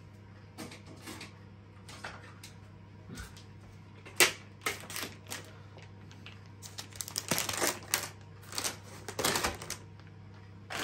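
Kitchen handling noises: scattered clicks and taps, one sharp click a little before the middle, then a quick crackling run of clicks as a knife is worked against a plastic bacon packet. A low steady hum runs underneath.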